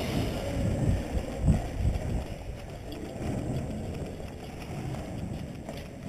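Footsteps and gear rustle of a player moving quickly over a concrete floor, with heavy low thuds in the first two seconds and a steady rumble of wind on the microphone.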